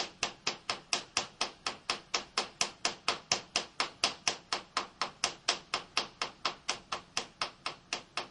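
Soft hammer tapping the side of a milling-machine vise, about four light taps a second in an even rhythm. The taps are nudging the vise round to bring its jaw into alignment with the table's travel, as checked on a dial indicator.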